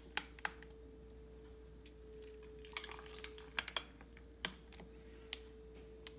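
Strawberry drink poured from a glass jug over ice into glass tumblers: scattered light clinks of glass and ice, with a faint sound of liquid pouring. A faint steady hum runs underneath.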